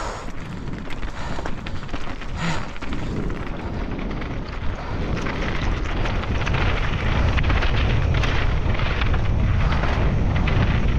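Mountain bike descending a rough race track at speed: wind buffeting the microphone over a constant clatter of tyres and bike on rough ground. It gets louder and heavier about halfway through as the rumble builds.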